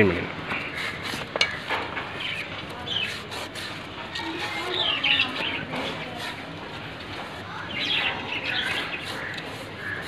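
Cloth rubbing and scrubbing inside a motorcycle wheel's brake drum as it is wiped clean, with a sharp click about a second and a half in. Birds chirp in short bursts several times in the background.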